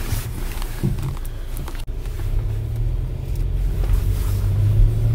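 Car engine and road noise heard from inside the cabin while driving: a steady low rumble that grows fuller about two seconds in.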